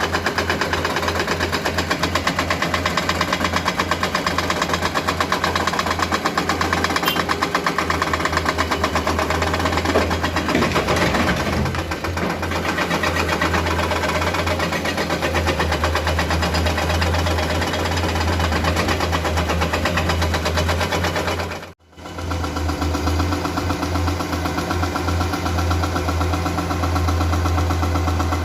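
Komatsu PC210 hydraulic excavator's diesel engine running steadily under work, with a noisier stretch of scraping and rumbling about ten seconds in. The sound cuts out abruptly for a moment a little past twenty seconds, then the engine carries on.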